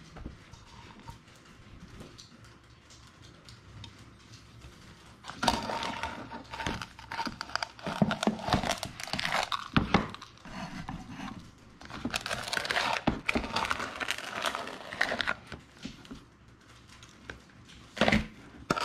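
A plastic measuring cup scooping and scraping through moist brown sugar in a plastic tub, in spells starting about five seconds in and again around twelve seconds. A short louder scrape comes near the end as the cup is lifted over the mixing bowl.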